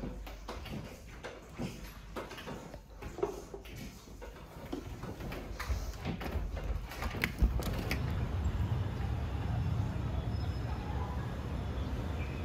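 Apartment creaking and rattling in earthquake shaking: the window frame and fittings give off irregular creaks and clicks. From about eight seconds in, a low steady rumble takes over.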